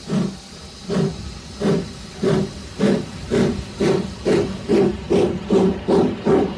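Steam locomotive pulling away from a standstill: exhaust chuffs, slow at first and quickening steadily to two or three a second, over a steady hiss of steam.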